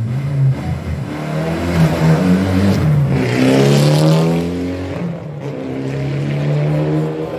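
Mitsubishi Lancer Evolution rally car's turbocharged four-cylinder engine launching hard from the start line, revving up and dropping back several times as it changes gear and pulls away. The sound fades toward the end as the car drives off.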